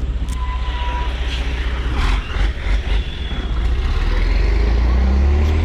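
Motorcycle engine running and pulling away, with a heavy low rumble of wind on the microphone. There are brief dips around the middle, and the engine rises in pitch and loudness near the end as it speeds up.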